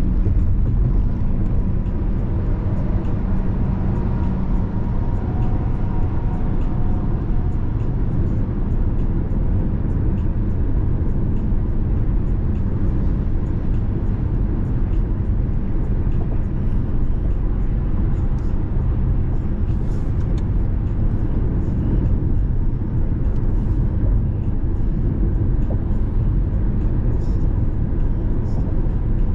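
Car being driven: a steady low rumble of road and engine noise.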